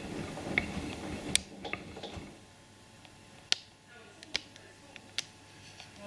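AKAI front-loading washing machine tumbling its wash, sudsy water sloshing in the drum. The tumbling stops about two seconds in, and in the pause a few sharp ticks sound.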